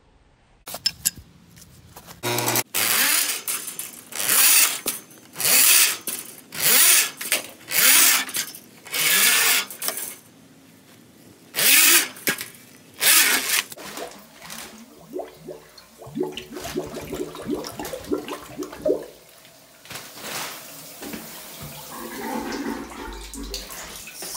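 Drain-cleaning machine working its cable in an outdoor sewer cleanout, with a run of loud rushing surges about a second apart, then a quieter stretch with a faint steady hum.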